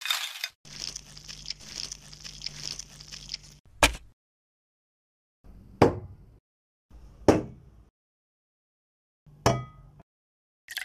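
Plastic toy bugs being stirred through cooked rice in a plastic bowl: a scratchy, clicking rustle for about three seconds. Four separate sharp knocks follow, the last with a short metallic ring, like a steel cooking pot being set down.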